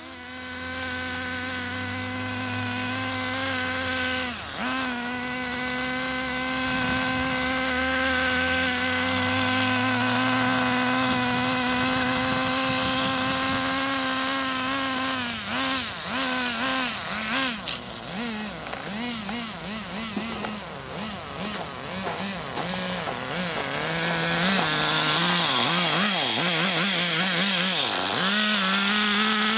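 Small two-stroke engine of a fuel-powered RC car running at a high, steady pitch, then revving up and down over and over for several seconds before settling to a steady pitch again near the end.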